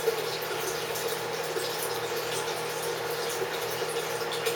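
A 16-ounce beer being poured into a stock pot of water: a steady splashing pour.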